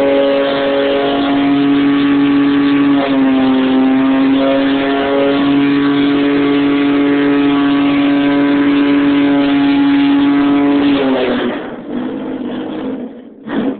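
Mazda 929 engine held at steady high revs during a burnout, rear tyres spinning on concrete. About three seconds in the pitch dips slightly, and about eleven seconds in the revs fall away and the engine drops back.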